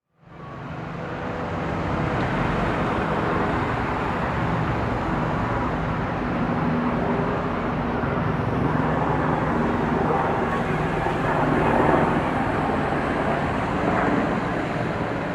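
City traffic: steady engine hum and road noise from passing vehicles, fading in over the first two seconds.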